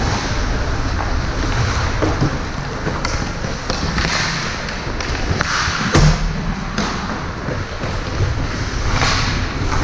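Steady noisy din of a youth game in progress, with a few thuds scattered through it; the loudest comes about six seconds in.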